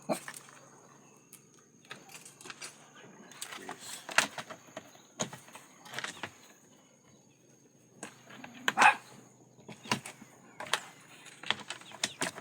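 Irregular clicks, knocks and short rustles of hands handling the parts and wiring of a tanquinho washing machine, with a louder short sound near nine seconds in.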